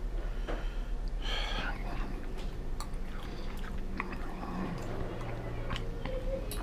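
A person chewing food, with small wet mouth clicks, and a short wavering vocal sound about a second in.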